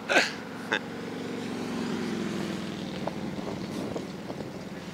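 A motor vehicle passing on the road, its engine hum swelling to a peak about two seconds in and then fading.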